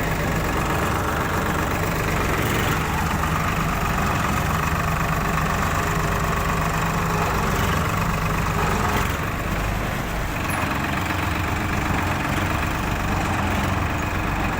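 Swaraj 963 FE tractor-mounted combine harvester running steadily, its engine a continuous drone; the higher part of the sound drops away a little about nine seconds in.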